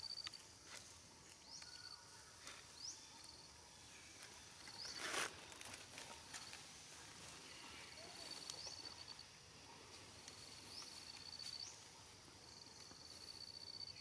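Quiet forest ambience with a thin, high animal call repeated several times, each a quick upward sweep, some followed by a held high tone lasting about a second. A single sharp snap comes about five seconds in.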